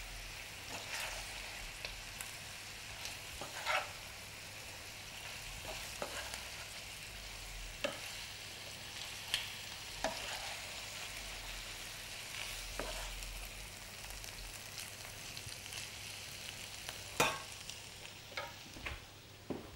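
A metal spoon stirring pieces of pickled cauliflower in a glass bowl, with scattered sharp clinks of the spoon against the glass, the loudest about three-quarters of the way through. A faint steady hiss runs underneath.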